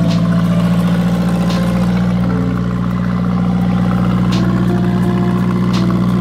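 Subaru Sambar kei truck engine idling steadily and loudly just after start-up, through a newly welded side exhaust with a Harley-Davidson muffler. The new exhaust still has a couple of leaks.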